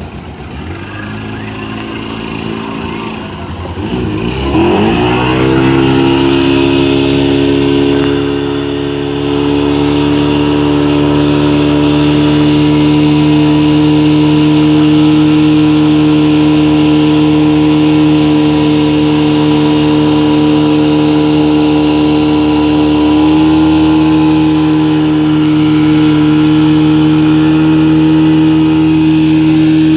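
Speedboat engine revving up about four seconds in, then running steadily at high speed, its pitch stepping up slightly near the end.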